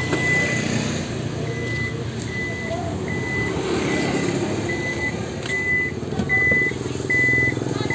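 Warning beeps of a minivan's power tailgate as it opens: a short, high-pitched beep repeating about once every 0.8 seconds, around nine times.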